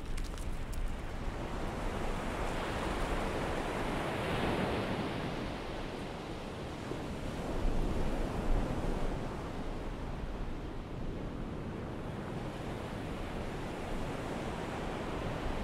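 Ocean surf: waves washing onto a beach in a steady rush that swells a few seconds in and again about halfway, with some wind.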